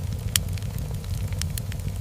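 Wood fire crackling in a fireplace: a steady low rumble of burning logs with scattered sharp pops, the loudest about a third of a second in and a few smaller ones later.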